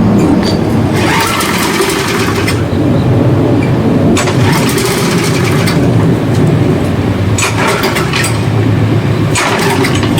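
A gasoline lawnmower being pull-started about four times, a few seconds apart, each pull a short cranking surge that doesn't catch. A steady low rumble runs underneath.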